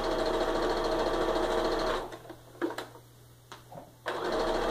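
Electric domestic sewing machine stitching steadily, running a line of reinforcing stitches over the seam ends, almost like backstitching. It stops about two seconds in, leaving a few light clicks while the fabric is handled, and starts stitching again near the end.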